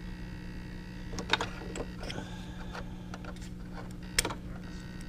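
Steady electric hum from a powered RC servo, holding several fixed tones, with a few sharp clicks and a brief rising whine a little after two seconds in.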